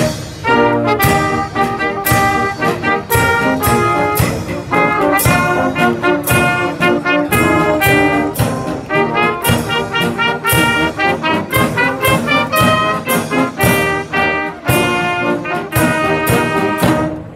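A Civil War-era brass band of cornets, saxhorns and tuba with a clarinet, snare drum and bass drum playing a tune, the drums striking a steady beat under the brass. The music stops just before the end.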